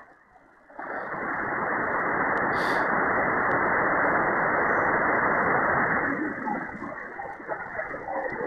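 Malachite DSP software-defined receiver's loudspeaker hissing with band noise on the 27 MHz CB band in USB mode, with nothing above about 2 kHz. It goes almost silent for under a second at the start, then hisses steadily, turning weaker and choppier from about six seconds in.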